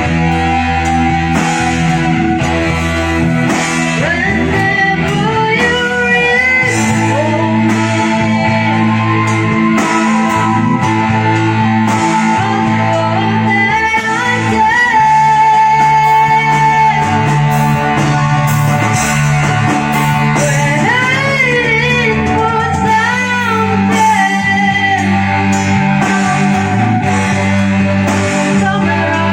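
Live band playing a rock song: electric guitar over a steady bass line, with a lead melody that bends and slides and a regular beat.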